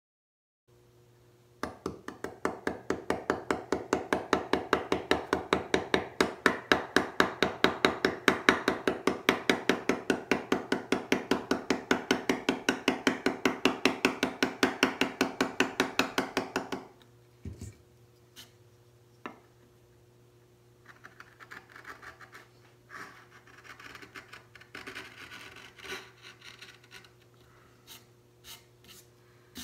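Round wooden mallet tapping a Harbor Freight carving chisel into a wood block in quick, even strokes, about five a second. The tapping stops about 17 seconds in, giving way to scattered light clicks and short scrapes of the chisel worked by hand.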